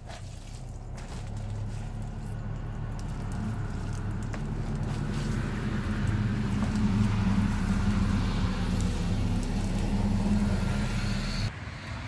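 An engine running steadily with a low hum, growing louder over the first half and then cutting off abruptly near the end.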